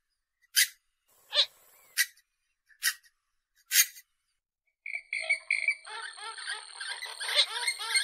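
Recorded purple swamphen calls: five short, sharp calls about a second apart, then from about five seconds in a dense, rapid run of repeated croaking notes at several pitches over a thin steady high tone.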